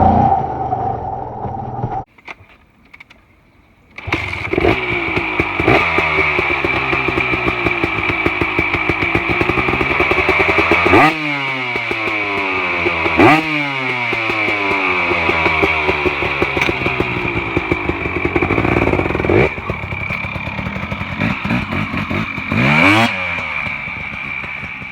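Two-stroke dirt bike engine running hard. The pitch climbs and drops over and over as it revs up and backs off, with a brief quiet gap a couple of seconds in.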